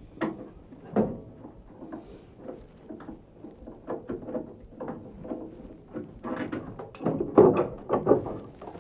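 Irregular clicks, knocks and scrapes of metal furnace parts and tools being handled while a gas furnace is taken apart. The knocking gets busier and louder in the last few seconds.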